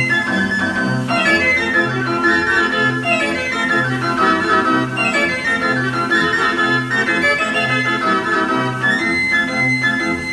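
1909 Wurlitzer Monster Military Band Organ playing a tune: organ pipes and horns over a regularly pulsing bass note, with quick runs of melody.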